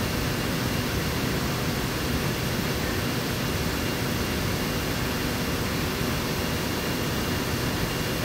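Steady rushing noise of fans or machinery, with a faint steady high tone in it.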